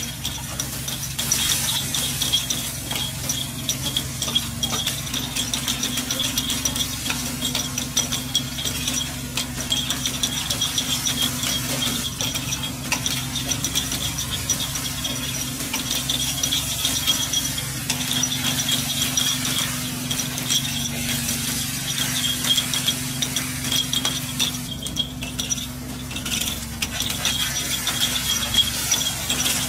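Takoyaki cooking at a street stall: metal utensils clicking, clinking and scraping against the takoyaki pan, with faint frying. Underneath runs a steady low hum and a high, fluttering whine from stall equipment.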